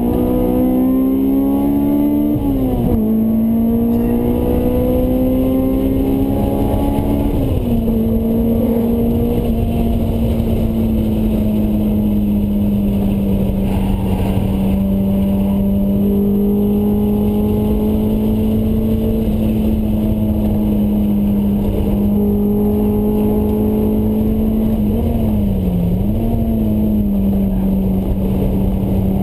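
Honda S2000's four-cylinder engine through a Mugen exhaust, heard from inside the cabin while lapping a track. The pitch climbs and drops sharply twice in the first eight seconds as the car is shifted up, then holds fairly steady with a brief dip about 25 seconds in, over road and wind rumble.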